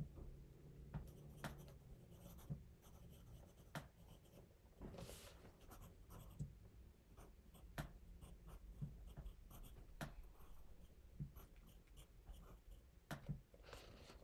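Faint scratching of a pencil writing on notebook paper, with scattered small clicks and taps.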